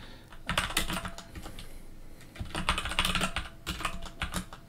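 Computer keyboard typing, with quick bursts of keystrokes separated by short pauses as commands are entered in a terminal and the vim editor.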